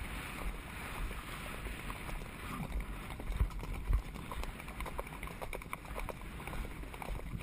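Hooves of ridden horses striking a dirt track in an irregular patter of clicks and knocks, over a low rumble of wind on the microphone. Two heavier thumps come about halfway through.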